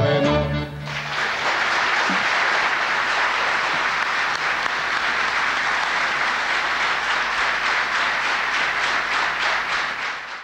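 A live band's final held chord with a singing voice ends about a second in, then an audience applauds steadily, until the sound cuts off suddenly at the end.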